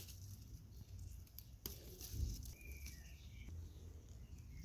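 Faint outdoor ambience: a few short, high bird chirps around the middle, over a low rumble, with a click or two.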